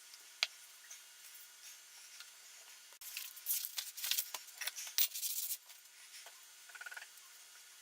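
Rust being scrubbed off the metal of an old hand plane: rapid scratchy rubbing strokes for about two and a half seconds, starting about three seconds in. A single sharp click comes before them, near the start.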